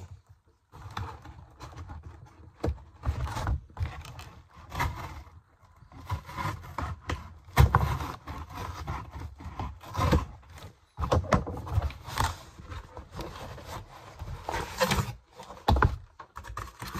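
A knife cutting open a cardboard box: irregular scraping strokes and sharp knocks, with the cardboard flaps handled as the box is worked open.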